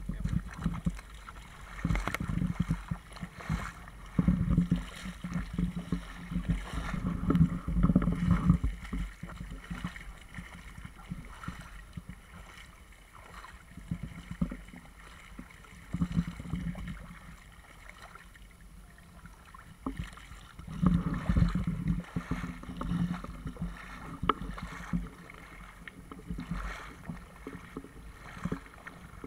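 Cocker spaniel wading and splashing through shallow seawater: irregular bursts of sloshing, quieter for several seconds in the middle.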